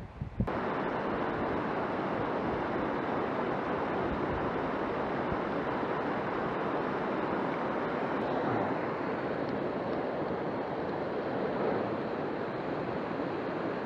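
Mountain stream rushing over rocks and small cascades: a steady, even rush of water that starts abruptly about half a second in.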